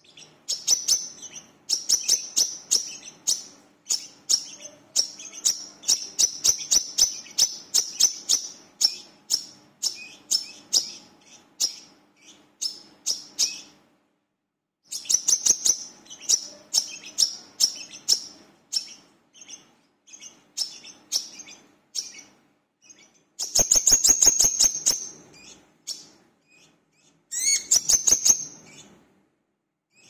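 Brown-throated sunbird singing: long runs of rapid, sharp high chirps with short pauses, loudest in two dense bursts near the end.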